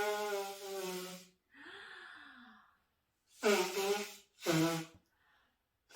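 A woman making honking sounds with her voice. A long honk ends about a second and a half in, a quieter breathy sound follows with a sliding pitch, and then come two short, loud honks a little past halfway.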